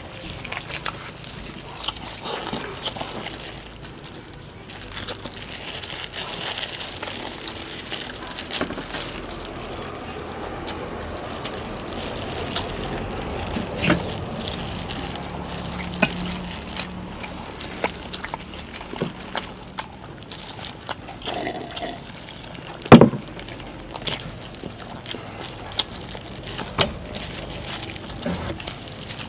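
Wet eating sounds as roast duck is chewed and handled, with scattered small clicks and one sharp knock about three-quarters of the way through.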